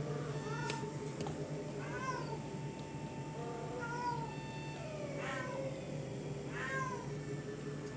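A cat meowing repeatedly: short calls about every second or so, over a steady low hum.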